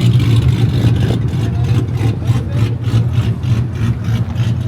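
Car engine idling with a steady low rumble and an even pulse of about five beats a second.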